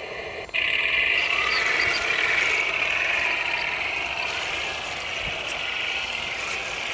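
Heng Long 1:16 Panther RC tank: its sound unit hums at idle, then about half a second in the tank drives off with a sudden, louder whir of its electric drive motors and gearboxes that carries on steadily.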